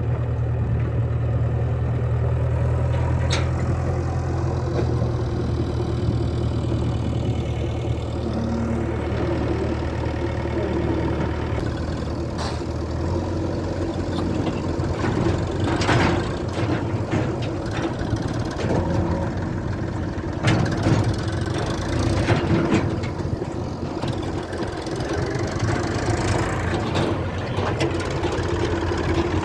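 Diesel engine of heavy machinery running steadily, its note shifting partway through, with a few sharp clunks.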